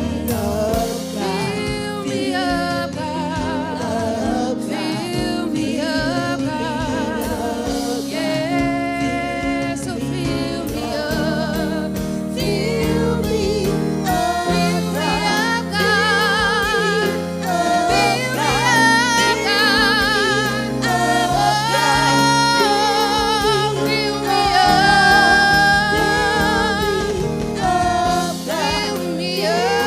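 Gospel worship music: voices singing together with vibrato over sustained accompanying chords and a steady beat.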